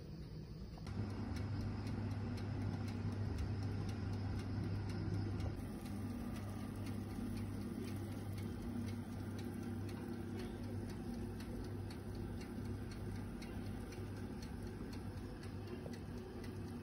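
Oven running while the dish bakes: a steady low hum with fast, even ticking over it. It starts about a second in.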